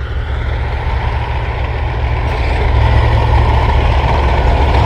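Tracked armoured vehicle on the move: its engine and tracks make a loud, steady low rumble.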